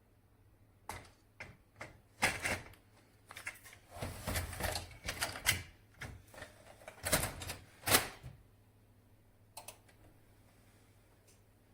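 Irregular clicks, taps and short rustles of things being handled close to the microphone, clustered over the first eight seconds, with a couple of faint clicks near the end.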